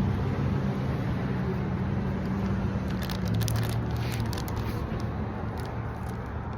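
Steady low hum of a car idling, heard from inside the cabin, with a few short crisp clicks and crunches about halfway through and near the end.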